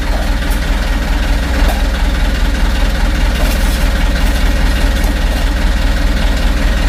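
An engine running steadily at idle, a constant low hum, with a few faint light clicks near the start.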